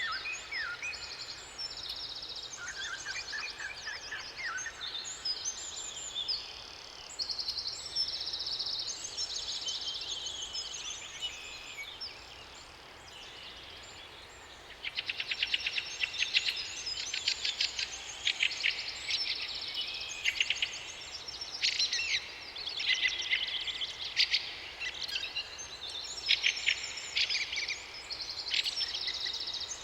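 Several songbirds singing at once, overlapping chirps and whistled phrases; about halfway in a louder, fast trilling, chattering song joins and dominates.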